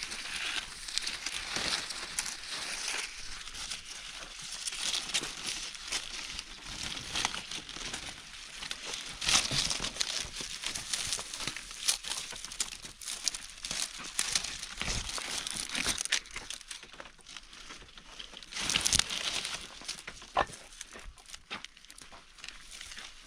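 Irregular crinkling and rustling with many small sharp clicks, like material being crumpled and handled, growing louder about nine and nineteen seconds in.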